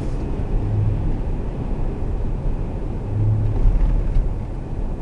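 Steady low rumble of road and engine noise inside a moving car's cabin, with a low hum that swells briefly twice.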